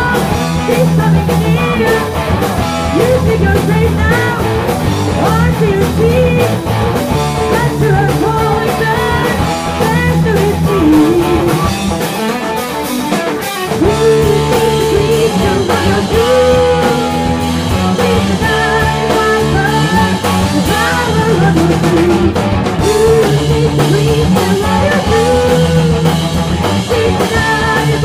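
Rock music with electric guitars and a drum kit playing steadily.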